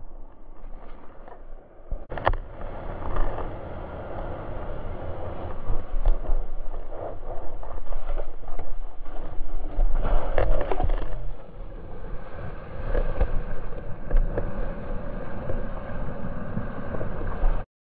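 Ocean surf and whitewash washing and splashing around a bodyboarder as he wades in and paddles out through the foam, heard close on his action camera, with gusty rumble on the microphone. The sound cuts off suddenly near the end.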